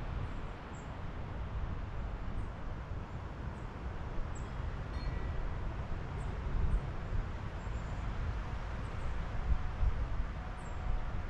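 Wind blowing through trees, a steady rushing with a low rumble that swells and eases, along with faint short high chirps here and there.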